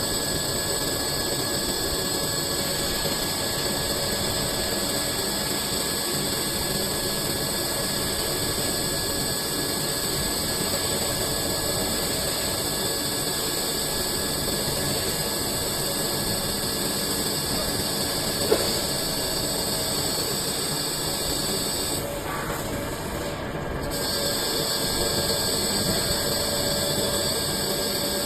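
CNC lathe running steadily while machining a cylinder into a ball, a continuous mechanical hiss with steady whining tones. There is a single sharp click about eighteen seconds in, and the hiss dips briefly a few seconds later.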